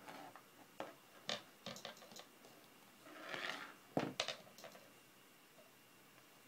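Light handling noises while a kitten is groomed with a slicker brush: scattered soft clicks and taps of the brush and hands on the floor, a short breathy rush about three seconds in, and a sharper knock about four seconds in as the brush is set down.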